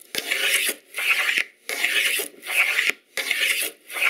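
Wooden grooving plane cutting a groove along a board in quick repeated strokes, about one every three-quarters of a second, each a shaving hiss. A few strokes start with a light knock.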